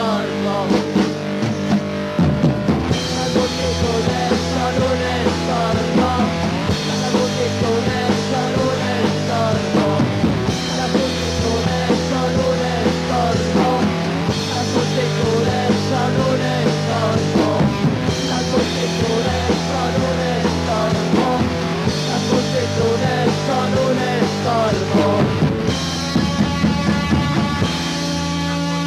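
Punk rock band playing an instrumental passage with no singing: a driving drum kit under guitar and bass. Near the end the drumming stops and a chord is held, ringing.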